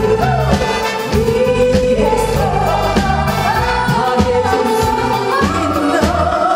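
Live band accompanying a lead vocal with backing singers, the voices rising to a long held note about five and a half seconds in.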